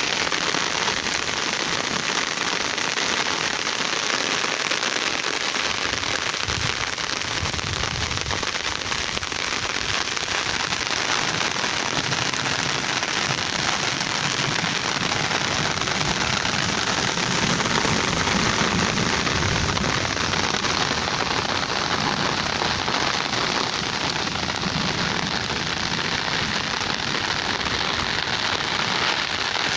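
Steady rain falling on puddles and waterlogged sandy ground.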